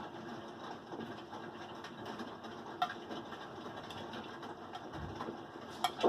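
Samsung WF337AAW front-load washer running in its wash cycle, the drum turning with a steady mechanical hum broken by sharp knocks about every three seconds. The knocking has not been cured by a recently replaced spider arm.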